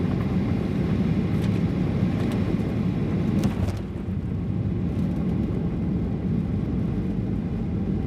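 Cabin noise of a Boeing 737-800 landing: a steady rumble of engines and wheels on the runway, with a few sharp knocks and rattles as it touches down and the spoilers deploy. The noise drops somewhat about four seconds in.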